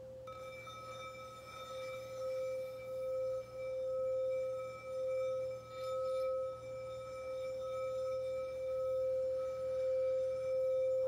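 Frosted quartz crystal singing bowl being rimmed with a wand, sounding one steady pure tone with a fainter higher ring above it. The tone wavers in slow swells about once a second and grows gradually louder.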